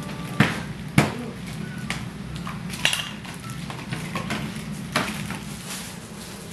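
Hard plastic toy-kitchen parts knocking and clattering as they are handled and fitted together: about four sharp knocks, the loudest near the start, with smaller ticks between.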